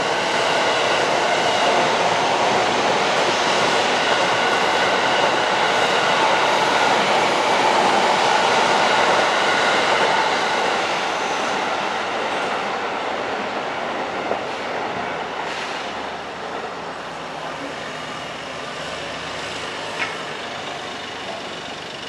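A train running past, loud for about the first ten seconds and then fading steadily away.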